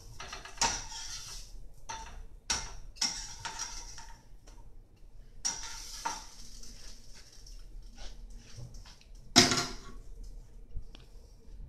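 Cookware and utensils clattering while pancakes are being fried: scattered sharp clinks and knocks, with a louder, longer clatter about nine seconds in.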